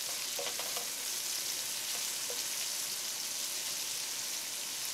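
Sliced red onions frying in hot oil in a pot, a steady sizzling hiss, stirred with a wooden spatula that gives a few faint scrapes in the first second and once more a little past halfway.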